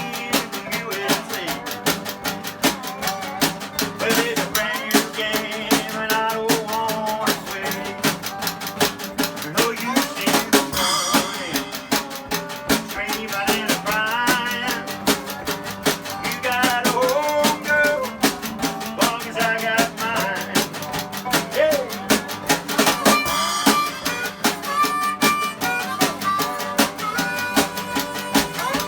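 Old-time jug-band music: harmonica with bending notes over strummed ukulele and six-string guitar, with spoons and a brushed snare drum keeping a fast, steady clicking beat.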